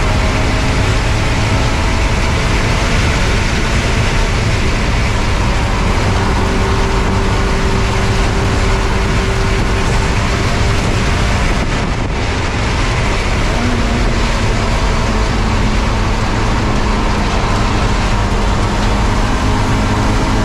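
Spec Miata's four-cylinder engine running hard at racing revs, with heavy wind and road noise, heard from inside the car. A brief dip in loudness comes about twelve seconds in.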